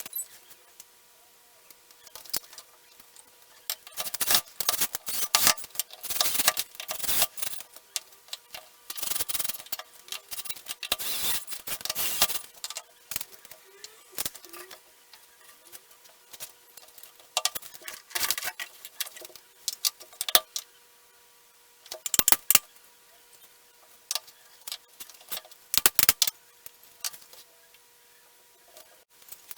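Small hardware and wooden parts of a flat-pack desk being handled and fitted, with irregular clicking, clattering and rattling in bursts over a faint steady hum.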